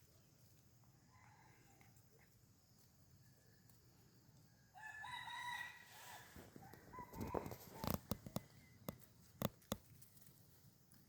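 A rooster crowing once, about five seconds in, a single drawn-out call. It is followed by a run of sharp clicks and knocks over the next few seconds, which are the loudest sounds.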